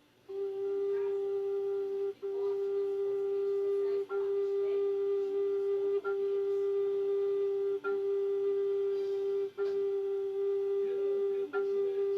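Native American flute (siyotanka) holding one steady note, briefly broken about every two seconds and re-sounded at the same pitch.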